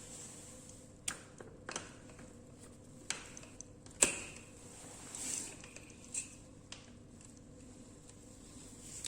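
Scattered light clicks and knocks over a faint steady hum, the sharpest knock about four seconds in.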